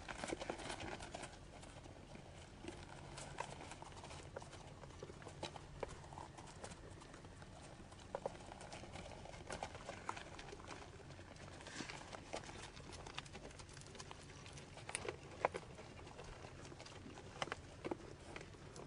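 White-tailed deer hooves stepping on packed snow and frozen ground, giving irregular knocks and crunches at uneven intervals, with a few sharper knocks near the end.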